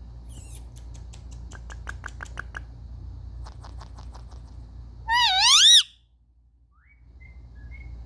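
Indian ringneck parrot vocalising: two runs of quick, clicking chirps, then a loud wavering whistle a little past halfway, and a short rising whistle near the end.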